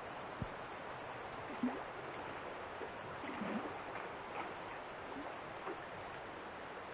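Steady rush of flowing river water, with a few faint short sounds now and then.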